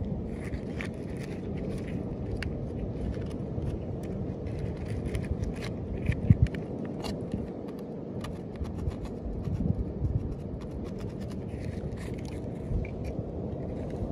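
Small blade scraping algae off a turtle's shell in short scratchy strokes, over a steady low rumble, with a couple of louder knocks midway.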